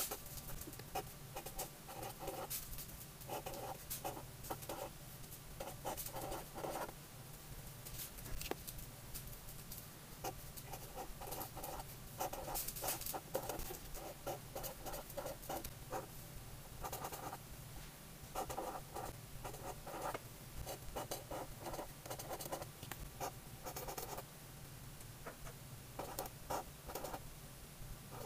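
Felt-tip marker writing on grid notebook paper: short scratchy pen strokes in quick clusters, letter by letter, with brief pauses between words.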